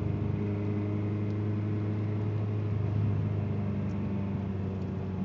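Ford Escort ZX2's 2.0-litre four-cylinder engine running at steady revs in first gear, its note broken up by a popping misfire.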